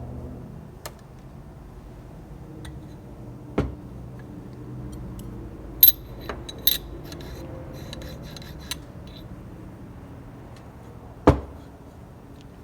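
Metal parts clinking and knocking as they are handled on a workbench: two bright ringing clinks about six seconds in, a heavier knock early on and another near the end, and a few light ticks, over a low steady hum.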